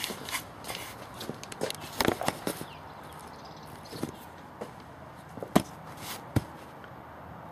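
Footsteps with scattered sharp knocks and clicks, a few of them loud, over a low steady background.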